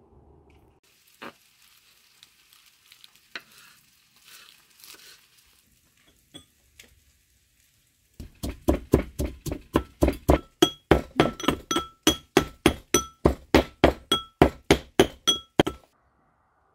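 Brass mortar and pestle pounding garlic with salt, a steady run of about three to four strikes a second, each with a bright metallic ring; a few light clicks and rustles come before the pounding starts, about halfway in.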